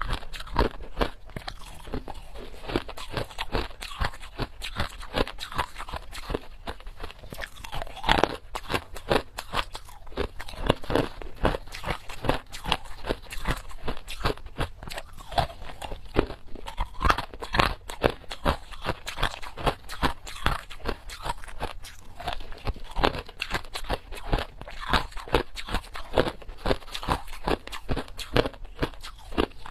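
Close-miked chewing of ice: dense, irregular crunches, several a second, as the ice is bitten and ground between the teeth.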